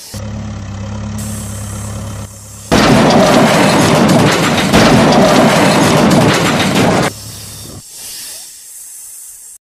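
Dubbed vehicle sound effects: a steady low engine hum, then about three seconds in a sudden loud blast-like rumble that lasts about four seconds before dropping away to a quieter rumble.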